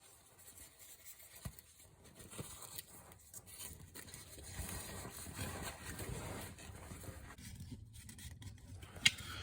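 Faint rustling, scraping and small ticks of hands fitting a self-adhesive insulation pad up under the car's gearbox tunnel, with one sharp click near the end.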